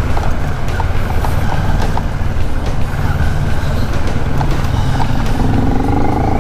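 CFMOTO 400NK motorcycle's parallel-twin engine running at low speed, a steady low drone with road and wind noise. Near the end the engine note rises as the bike accelerates.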